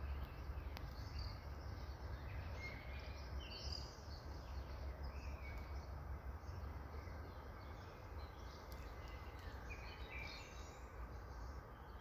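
Outdoor ambience: a steady low rumble and hiss, with scattered short bird chirps.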